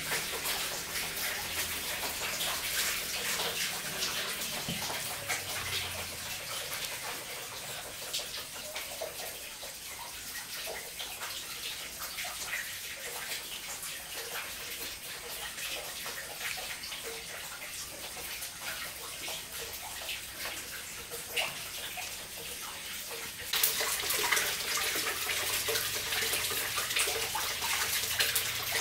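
Water splashing and trickling: a steady hiss full of small drops and ticks. About three quarters of the way through it changes suddenly and becomes louder and brighter.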